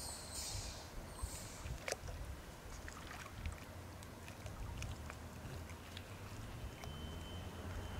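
Japanese macaque wading and swimming in a pond, the water sloshing and lapping faintly around it, with a few small splashing clicks, the clearest about two seconds in.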